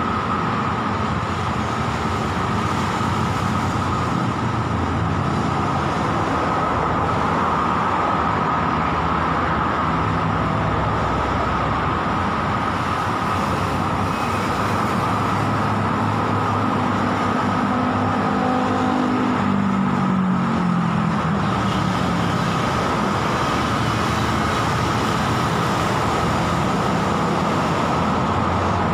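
Steady road traffic on a multi-lane highway, with cars and motorcycles passing continuously. A little past halfway, one passing vehicle's engine note slides down in pitch.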